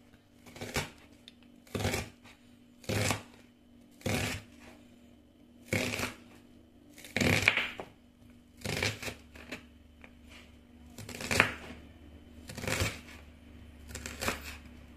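Kitchen knife slicing a white onion on a wooden cutting board: a crisp crunch as each cut goes through the onion and meets the board, about one stroke a second, a dozen in all.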